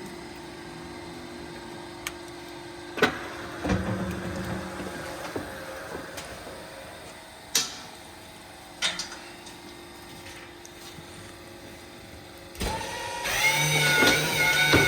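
A steady machine hum with a few sharp clicks and knocks, then music with held, droning tones starting near the end.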